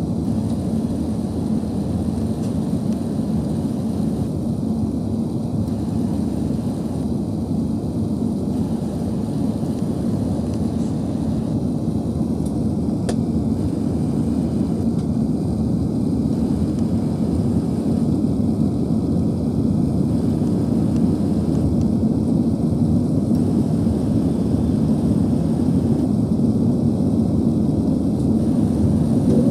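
Steady, low drone of an Airbus A380-800's engines and airflow heard inside the passenger cabin during the climb after takeoff.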